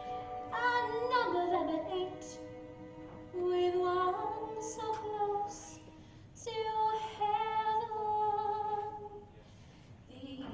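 A woman sings a slow show tune solo in phrases, holding long notes with vibrato.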